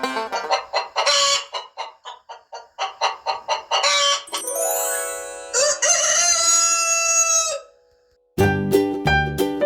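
Chickens clucking in a quick run of short calls, then a rooster crowing one long cock-a-doodle-doo about four seconds in.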